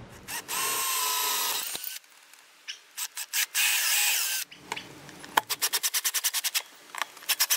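Cordless drill running in two steady runs with a whine, drilling holes for a wall bracket, then a fast run of clicks, about five a second, as it drives a screw into the bracket.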